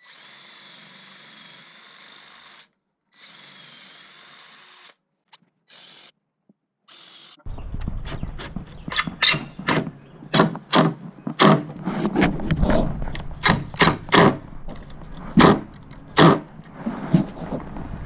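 Ridgid cordless drill spinning a countersink bit, in two steady runs and then a few short bursts. About seven seconds in, a cordless driver drives screws into corner brackets in a series of short, sharp bursts, over low wind rumble on the microphone.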